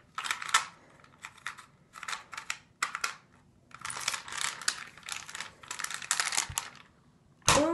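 Plastic 3x3 Rubik's Cube being twisted fast by hand, its layers clicking and clacking in quick bursts of turns with short pauses; the turning stops about a second before the end.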